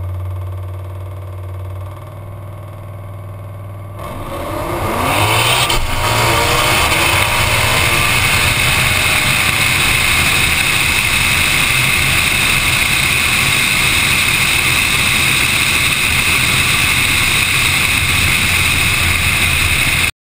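Turbocharged 5.0 Coyote V8 of a 2011 Mustang GT idling at the starting line, then launching about four seconds in, its revs climbing. It becomes a loud, steady rush of engine and wind noise down the drag strip, which cuts off suddenly near the end.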